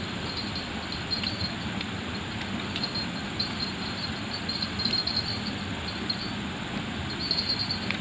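Insects chirping in short, repeated high trills that come and go over a steady outdoor hiss, with a few faint clicks.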